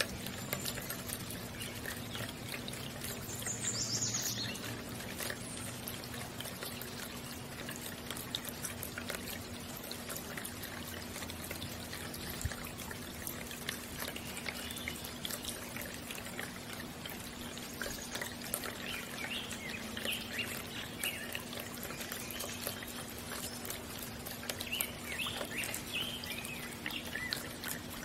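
Water bubbling and splashing from a small ceramic bird-bath fountain's jet, over a steady low hum, with a few short high bird chirps about four seconds in and again in the last third.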